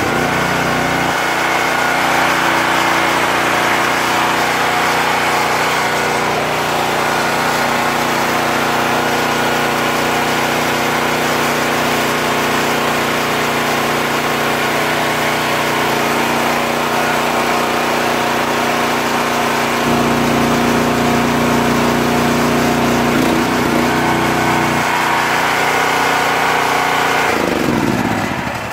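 Small single-cylinder petrol engine on a hydraulic log splitter, just pull-started, running steadily with its tone shifting a few times. Near the end it is switched off and winds down.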